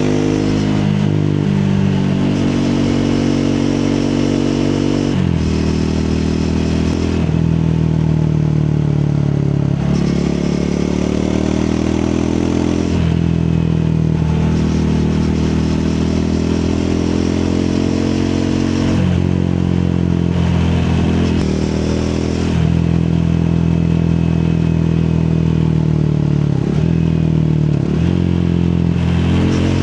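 Triumph Speed 400's single-cylinder engine under way, revving up and dropping back again and again as the bike accelerates and shifts or rolls off the throttle.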